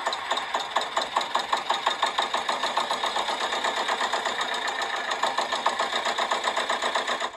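Recorded sound effect of a vehicle engine running with a steady, fast pulsing of about six beats a second, cutting off suddenly at the end.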